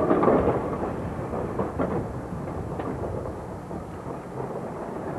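1922 Peter Witt streetcar rolling along its rails: a steady low rumble with a few short knocks, loudest near the start and easing a little as it goes.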